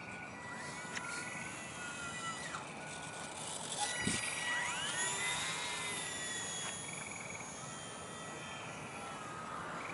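Motor and propeller of a radio-controlled glider whining as it flies close overhead. The pitch sweeps sharply upward about halfway through, then eases slowly down. Frogs trill in the background.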